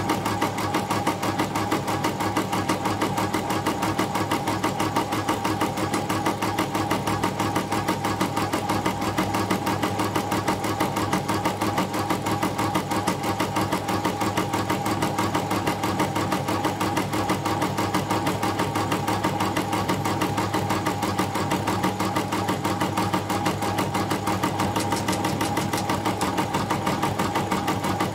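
YOKO computerised embroidery machine running and stitching, with a rapid, even rhythm of needle strokes and a steady motor hum.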